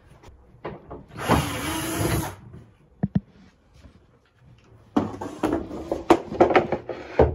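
Handling noise from a camera being moved and covered: a burst of rustling about a second in, a couple of sharp clicks near the middle, and a run of knocks, clicks and rustling in the last couple of seconds.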